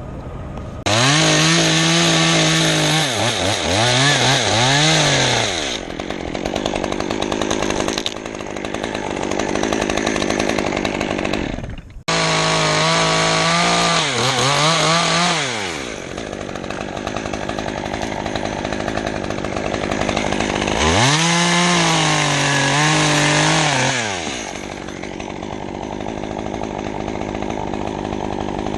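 Chainsaw cutting wood in three loud bursts, its engine pitch sagging and recovering under load, dropping back to a lower running speed between cuts.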